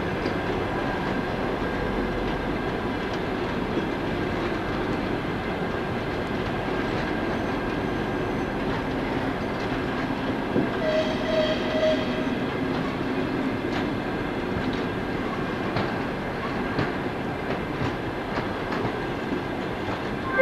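Passenger train coaches rolling slowly past the platform as the train pulls in, a steady rumble of wheels on rails. About eleven seconds in there is a brief high squeal.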